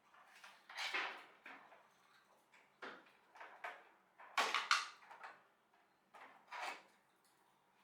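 A series of short scrapes and knocks at irregular intervals, about ten in all, with the loudest cluster about four and a half seconds in.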